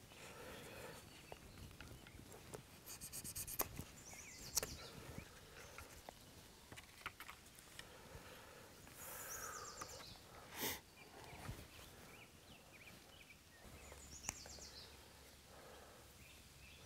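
Faint handling of a wooden stick fishing rod and reel: light rustles and soft knocks, with one sharper knock about eleven seconds in. A falling run of high chirps is heard twice.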